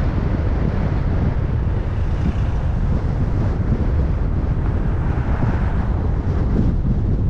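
Wind buffeting a car-mounted camera's microphone, over the steady low rumble of a car driving at town speed.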